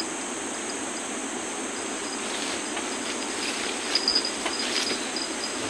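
Tropical insects chirping and trilling steadily over the constant rushing hiss of a flooded river, with a few short rustles and clicks about four seconds in as someone moves through the undergrowth.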